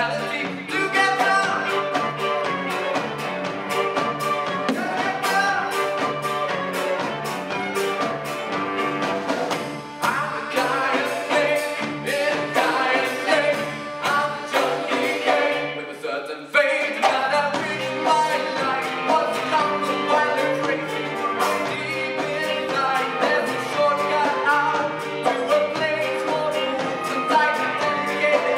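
A folk music ensemble playing live: melody instruments over a steady beat, with a short break just past the middle before the band comes back in.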